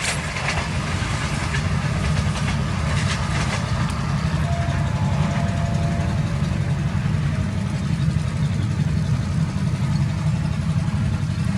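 Train running by: wheels clicking over rail joints for the first few seconds, then a steady low rumble.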